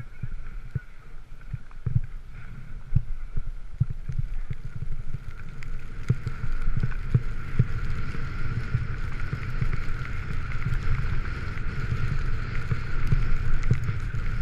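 Wind rumbling and buffeting on a skier's body-mounted camera microphone during a downhill run, with frequent knocks, over the hiss of skis running through snow. A steady thin whistle grows stronger in the second half.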